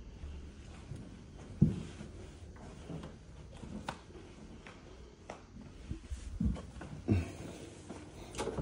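Footsteps and handling bumps from someone walking through empty rooms, heard as irregular soft thumps with a sharper knock about a second and a half in.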